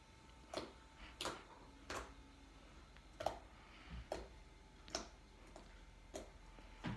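Sticky, stretchy slime being squeezed and worked by hand, giving faint, sharp clicks and pops at uneven intervals, about one a second.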